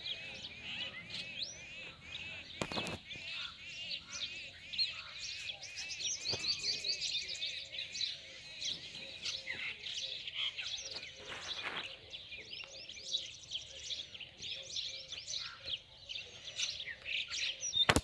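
A dense chorus of small birds chirping and twittering without a break, with a single sharp knock about three seconds in.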